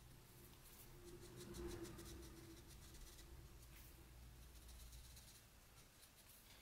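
Faint scratching of a marker tip tracing around the edge of a paper template laid on a steel blank, in quick short strokes.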